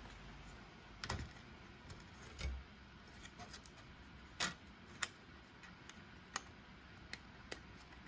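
Irregular sharp clicks and small knocks, about a dozen spread over several seconds, one with a dull thump about two and a half seconds in: hands handling the plastic parts of a TEAC CD cassette deck opened up for repair.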